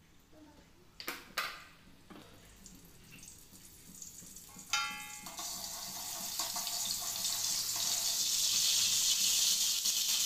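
Light clinks about a second in, then a metal spatula clanks once against the wok. After that, cooking oil sizzles in the hot wok, a high hiss that grows steadily louder.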